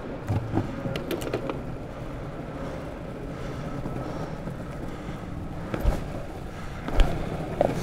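Longboard wheels rolling over pavement: a steady rumble, with a few sharp clicks and knocks in the first second and a half and two louder knocks near the end.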